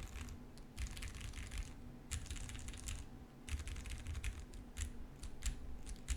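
Typing on a custom mechanical keyboard built with lubed Cherry MX Brown switches, an FR4 plate, a tape-modded PCB and GMK keycaps. It comes in three quick runs of keystrokes, then a handful of single key presses near the end.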